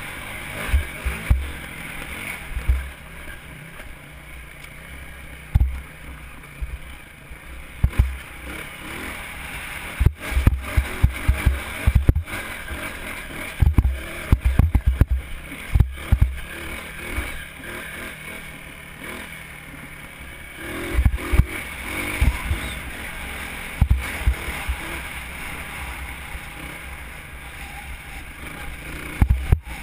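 Dirt bike engine running under way on a rough, rocky trail, with many irregular heavy thumps and jolts as the bike crosses bumps and ruts.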